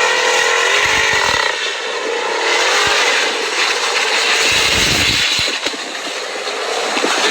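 Car engine running at high revs, its pitch wavering for the first second and a half, then a rough, loud rush of engine and tyre noise, typical of a car being driven hard off road.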